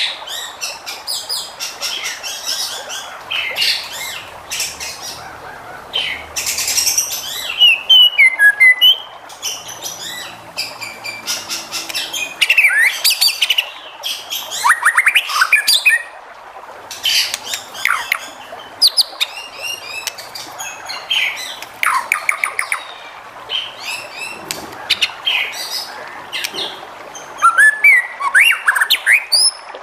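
White-rumped shama singing a fast, varied song of loud whistles, sliding notes and rapid trills, phrase after phrase with only short pauses between them, over a steady background hiss.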